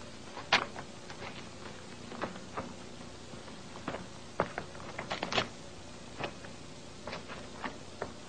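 Scattered, irregular sharp clicks and taps over a steady background hiss, with a cluster of louder ones about five seconds in.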